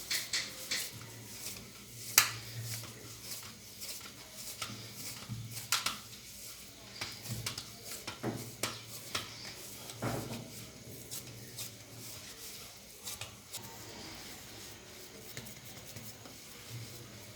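Hands kneading and gathering barley-flour dough in a bowl: soft rubbing with scattered irregular clicks and light knocks against the bowl.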